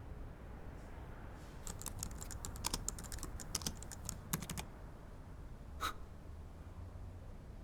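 Keys being typed on a keyboard: a quick run of light, sharp clicks for about three seconds, then a single louder key click about a second later, over a faint low hum.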